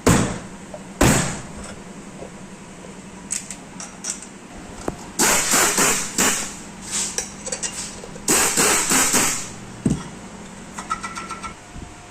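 Two sharp knocks a second apart, then two bursts of rattling and clattering, each about a second long and three seconds apart, and a single knock near the end, over a steady low hum: hard parts being knocked and handled during ceiling fan assembly.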